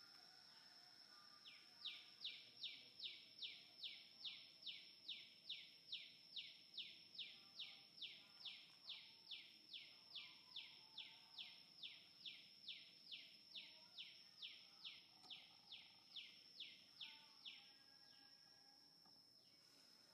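Faint outdoor wildlife: a steady high-pitched insect drone, joined about a second and a half in by a long run of evenly repeated falling calls, about two a second, which stops near the end.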